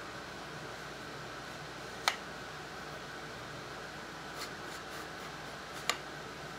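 Two sharp clicks, about two seconds in and near the end, with a few faint ticks between, as the rifle's trigger group and wooden stock are handled, over a steady workshop hum.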